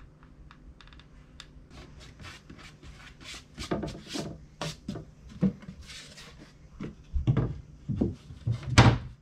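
Wooden hatch lid being handled: scraping and small knocks, then a run of wooden thunks in the last two seconds, the loudest just before the end.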